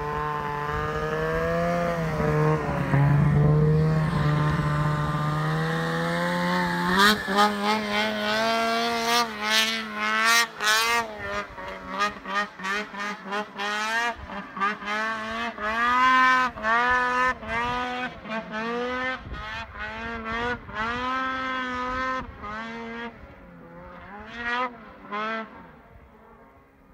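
Ski-Doo 850 snowmobile's two-stroke twin engine running, held fairly steady for the first several seconds, then revved up and down in quick repeated throttle blips, growing fainter near the end.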